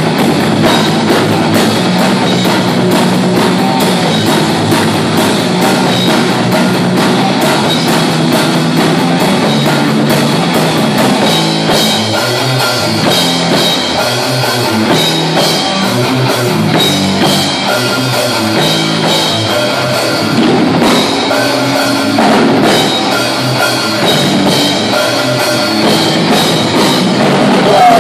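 A live heavy metal band playing an instrumental passage: distorted electric guitars, bass guitar and a drum kit, without vocals.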